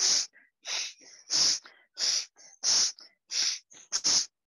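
A man's rapid, forceful exhalations through the nose, about eight short sharp puffs at an even pace of roughly one and a half a second: exhale-only bhastrika breathing, done to clear the nasal passages.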